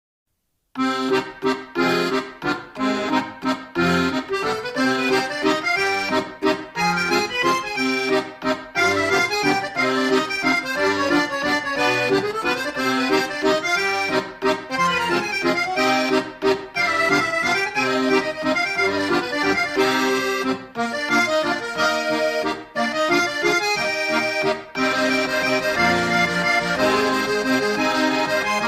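Accordion music, a waltz, starting after a brief silence about a second in.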